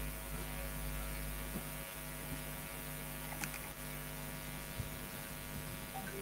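Steady electrical mains hum, a low buzz made of several even tones, carried on an open microphone's audio line. A couple of faint clicks come through about halfway.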